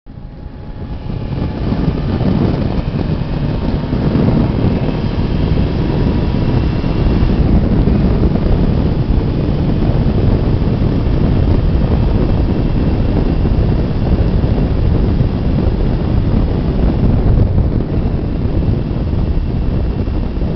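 Heavy wind buffeting on the microphone of a Suzuki GSX-R sport bike at speed, over its inline-four engine pulling under acceleration.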